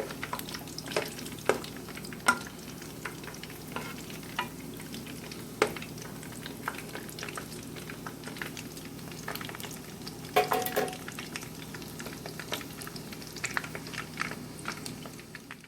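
Mini doughnuts frying in hot oil: a steady sizzle with scattered pops, and the knocks and clinks of a utensil turning them in the pan, loudest in a quick cluster about ten seconds in.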